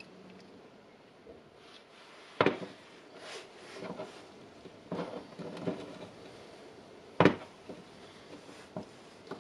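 Handling clicks and knocks as a lithium-ion battery cell pack and its new BMS circuit board are turned over and pressed together by gloved hands. There are two sharp knocks, one about two and a half seconds in and one about seven seconds in, with softer rustles and taps between them.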